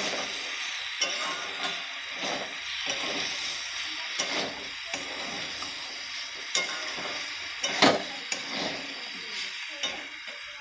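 Ridge gourd and potato pieces sizzling in oil in a pan while a spatula stirs them, scraping and clicking against the pan now and then, the loudest knock about three-quarters of the way through.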